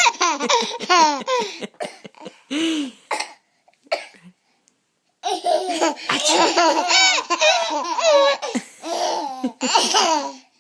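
Young children laughing hard in long, high-pitched peals, set off by a sneeze. The laughter stops about three seconds in, goes quiet for nearly two seconds, then starts up again.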